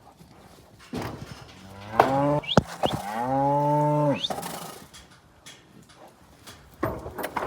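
Calf bawling in one long call of about two seconds, with a few sharp knocks before, during and after it.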